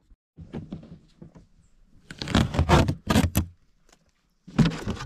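Handling noise from the camera being gripped and moved: rubbing and scraping close to the microphone, with a few light clicks, a louder stretch of scraping about two seconds in, and another short burst near the end.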